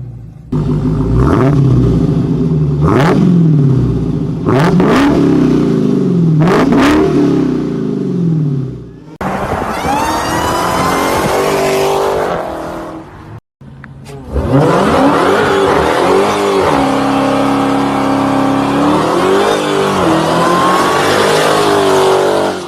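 Dodge Challenger Hemi V8 revved repeatedly, the engine pitch rising and falling with each blip of the throttle. After an abrupt cut it accelerates hard, pitch climbing again and again.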